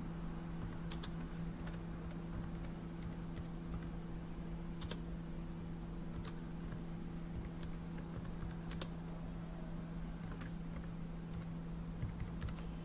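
Typing on a computer keyboard: irregular, spaced-out key clicks, over a steady low hum.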